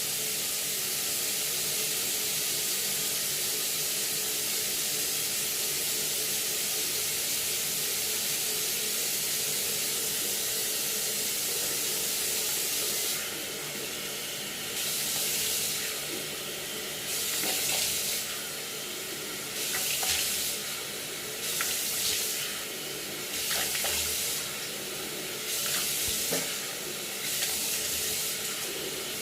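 Tap water running into a sink while someone washes their face. For the first half the stream is steady; from about halfway it rises and falls roughly every second and a half as hands cup the water and splash it.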